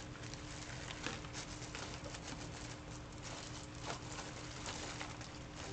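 Scattered soft clicks and light rustling of things being handled on a desk while someone searches for something, over a steady faint electrical hum.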